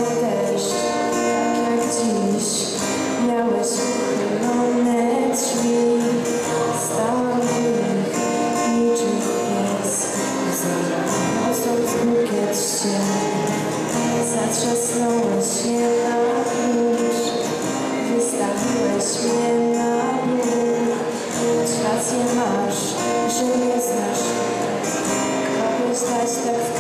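Acoustic guitar strummed with a girl's voice singing along, a live song performance.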